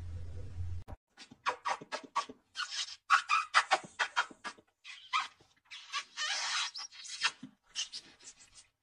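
A low hum that cuts off about a second in, then a person kissing a kitten's face over and over: a quick run of short smacking kisses, a few of them drawn out longer.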